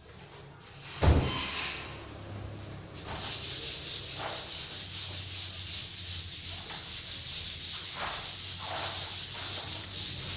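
A single hard thump about a second in, then a hand tool rasping back and forth over a surface in quick, even strokes, about four a second, with a few light knocks among them.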